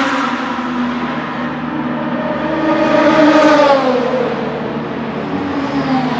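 BMW M4 GT3's twin-turbo 3.0-litre straight-six running at low speed as the car pulls into its pit box, the revs rising to a peak just past the middle and dropping back, with a smaller rise near the end.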